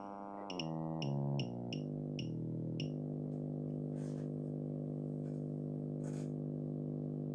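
Test tone from a DDS signal generator played through a homemade 20-watt audio amplifier and speaker. For the first three seconds it steps down in pitch in quick steps, with a short tick at each step. After that it holds one steady low tone.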